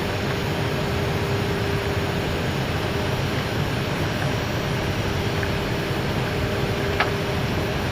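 Steady rush of airflow and engine noise inside an Airbus A319 cockpit on approach, with a faint steady hum running through it and a small click about seven seconds in.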